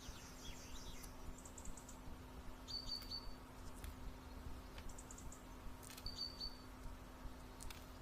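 Faint bird chirps and short high trills, the same pattern coming round again every few seconds, over a steady low hum with a few soft clicks.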